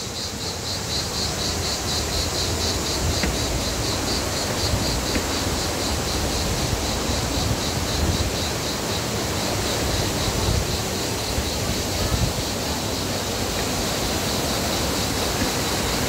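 Steady rush of water from the canyon's stream and cascades. An insect chirps in a quick pulse of about four a second, fading out about halfway through.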